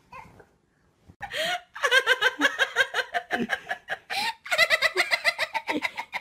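A person laughing hard in long runs of quick, high-pitched bursts, starting about a second in and breaking off briefly twice.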